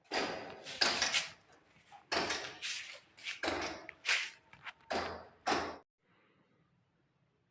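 Pieces of dry clay (mitti) crunching close up, in about six loud, rough crunches over six seconds, then it stops.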